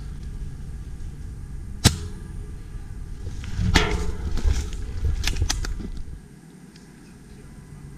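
Ares Striker bolt-action spring airsoft sniper rifle firing a single sharp shot about two seconds in. It is followed by a louder stretch of knocking and rustling handling noise with a few sharp clicks.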